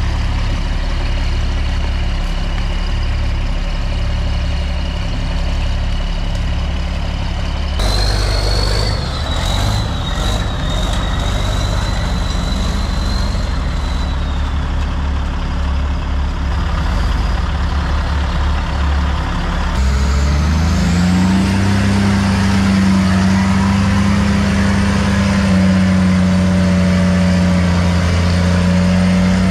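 Heavy truck engine running steadily, with an abrupt change in the sound about eight seconds in. About twenty seconds in it revs up and holds at a higher, louder speed.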